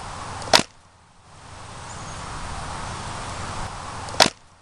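Steady outdoor background of wind and rustling, cut twice by a single sharp click, about half a second in and again near the end; after each click the background drops away briefly and slowly swells back.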